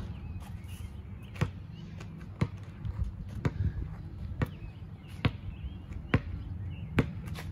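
Basketball dribbled on an asphalt court, a slow steady bounce about once a second.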